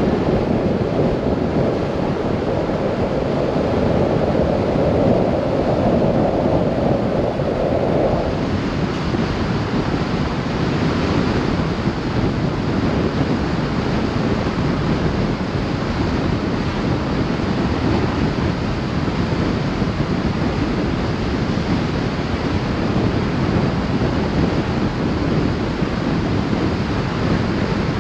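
Steady road noise from a vehicle driving at speed on concrete pavement: tyre noise mixed with wind rushing over the microphone. A humming tone in the tyre noise stops about eight seconds in.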